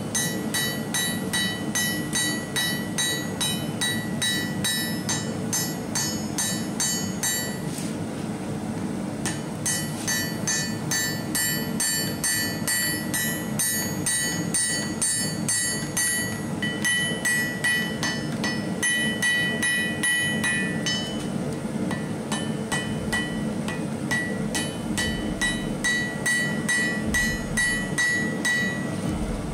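Hand hammer striking a red-hot zigzag-cut steel bar on an anvil in a steady rhythm of about three blows a second, each blow ringing. The blows stop briefly about eight seconds in. The bar is being forged flat to form the serpent pattern.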